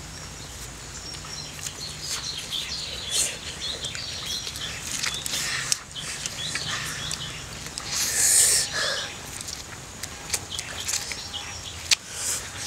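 Two people slurping and chewing instant noodles, with short wet sucking slurps and mouth clicks; the loudest slurp comes about eight seconds in.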